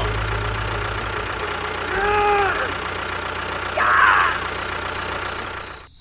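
A small engine running steadily, with two short vocal sounds about two and four seconds in; the sound cuts off abruptly just before the end.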